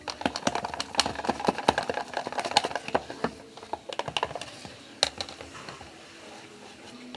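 A slime mixture of moisturiser and toothpaste being stirred in a container. The utensil makes quick, irregular clicks and scrapes against the container, which thin out about five seconds in.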